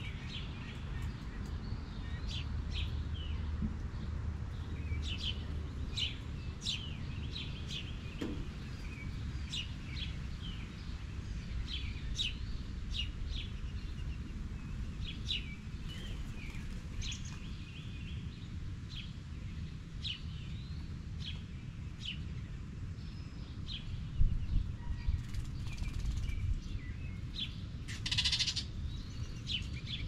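Wild songbirds chirping, short separate calls scattered throughout over a low outdoor rumble. A low bump about three-quarters of the way through and a short harsh rasp near the end stand out.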